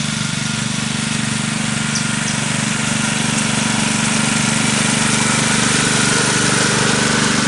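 Small engine of a ride-on 7¼-inch gauge diesel-outline miniature locomotive running steadily as it hauls a car with riders, getting gradually louder as it comes close.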